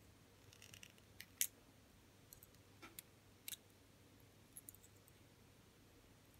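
Faint, sharp metal clicks, about a dozen scattered irregularly, from long-nose pliers gripping and twisting a thin head pin wire around itself to wrap a bead.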